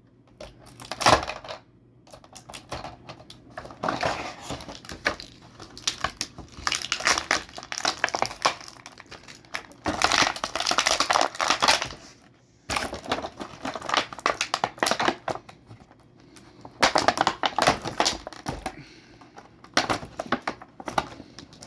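Action figure's plastic packaging crinkling and crackling in irregular bursts as the contents are pulled free, with a few sharp clicks.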